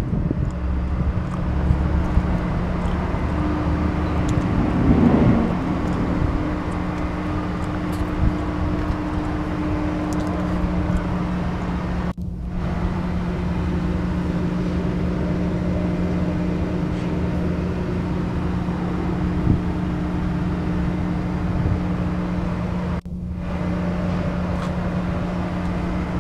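Cummins LTA-10G1 turbocharged six-cylinder diesel engine of a 200 kW generator set, running steadily at its governed speed, an even hum that breaks off for an instant twice.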